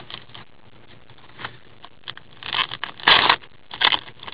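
A trading card being handled in a rigid plastic holder with cotton-gloved hands: a few short scrapes and rustles, the loudest about three seconds in.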